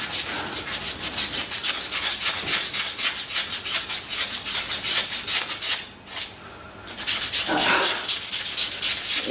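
A strip of abrasive cloth rubbed back and forth by hand over the metal face of a Douglas metal shaper's swivel head, about five quick strokes a second, cleaning up the engraved angle scale. The rubbing pauses for about a second before the six-second mark, then resumes.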